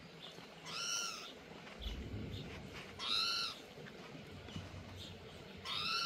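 Spotted towhee calling three times, about two and a half seconds apart. Each call rises and then falls in pitch; the last comes near the end.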